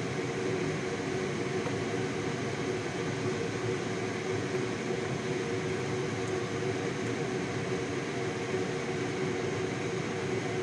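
Steady electric fan hum with a constant pitch.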